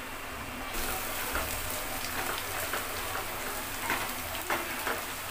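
Onion and spice masala sizzling in hot oil in a kadai while a wooden spatula stirs and scrapes through it. The sizzle gets sharply louder less than a second in.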